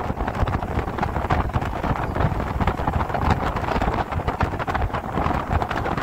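Wind buffeting the microphone from a moving vehicle, over a steady low road rumble.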